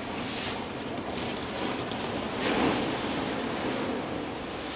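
Ocean surf breaking and washing against a rocky lava shoreline where molten lava enters the sea, a steady rush with a stronger surge about two and a half seconds in.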